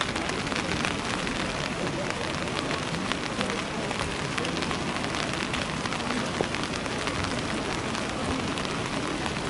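Steady rain falling, with a dense patter of drops striking close to the microphone.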